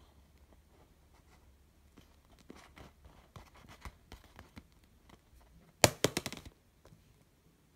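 Thin plastic skin of an inflated Bandai Dragon Ball gashapon balloon crinkling under a hand in scattered faint crackles, then a loud short burst of crackling about six seconds in as the ball is spun on the table.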